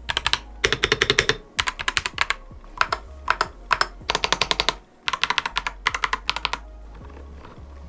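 Akko 5075B Plus mechanical keyboard being typed on with its stock, out-of-the-box switches and keycaps: quick runs of key clacks with short pauses between them, stopping near the end.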